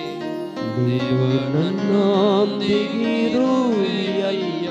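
A man singing a Kannada worship song into a microphone, holding long notes with vibrato, over a Yamaha PSR-S975 arranger keyboard playing bass and chords.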